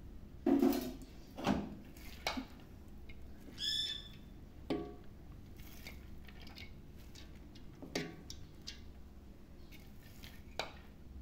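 Scattered clinks and soft knocks of a steel bowl and spoon against a steel cooking pot as boiled rice is tipped in for layering biryani. A bird gives one short squawk-like call about four seconds in.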